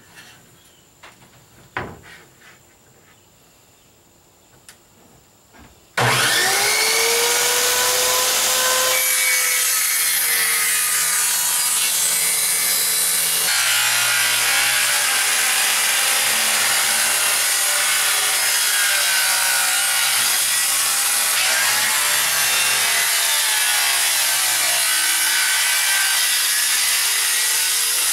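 Corded electric jigsaw starting up about six seconds in, its motor whine rising as it spins up, then cutting steadily through a plywood deck panel, the motor pitch wavering under load. Before it starts there are only a few faint handling clicks.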